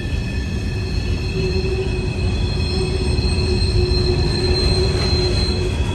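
Train wheels squealing against the rails on a tight curve: several sustained high-pitched tones over the steady low rumble of the passing railcars.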